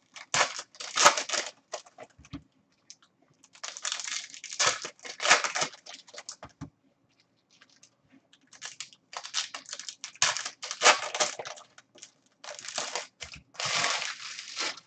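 Baseball card packs being torn open by hand, with the wrappers crinkling in several separate bouts.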